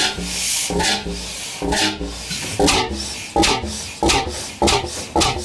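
A 1910 Cooper Bessemer 35 HP single-cylinder two-stroke engine running on propane at its normal speed. It chugs out a regular train of heavy exhaust beats, a little under one a second at first and quickening to nearly two a second.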